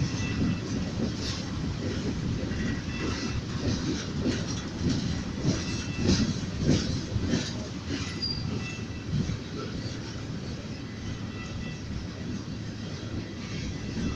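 Freight train cars rolling past, wheels knocking over rail joints, with brief faint wheel squeals now and then.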